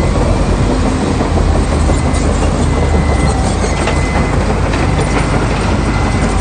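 Crawler bulldozer's diesel engine running steadily, with the rattle and clatter of its steel tracks.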